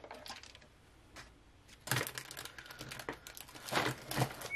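Hand-pump spray bottle spritzing water onto the cut paper towel to wet it: several quick squirts, each a sharp click with a short hiss, in small groups about a second apart, loudest near the end.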